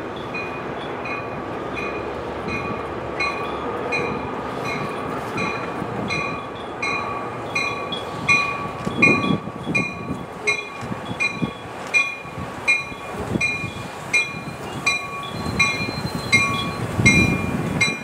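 A bell dinging steadily, about three strokes every two seconds, as an NJ Transit commuter train pulls into the station. The train's low rumble comes in uneven surges and grows louder in the second half as it nears.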